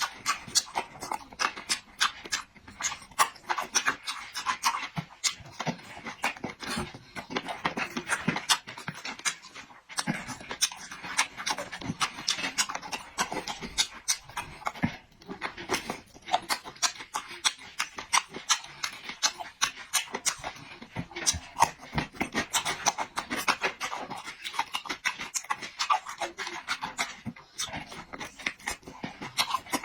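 Close-miked chewing and lip-smacking of food, with many wet mouth clicks in quick, uneven succession.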